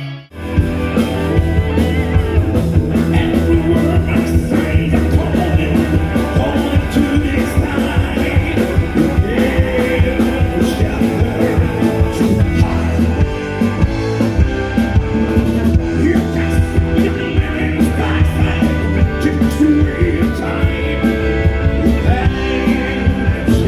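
Live rock band played loud through a festival PA: a singer over electric guitars, bass and drums with a steady beat, recorded from among the crowd. The sound drops out for an instant at the very start.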